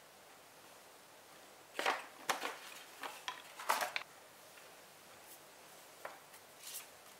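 Light taps and clicks of small stationery items handled on a tabletop: a quick cluster of several about two seconds in, then a couple of fainter ones near the end.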